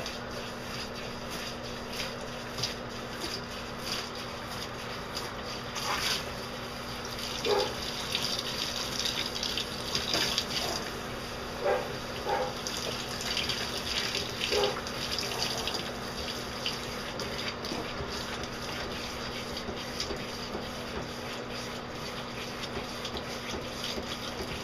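Handheld shower head spraying a steady stream of water into an Old English Sheepdog's long wet coat in a bathtub, rinsing out conditioner; the running water swells briefly louder a few times in the first half.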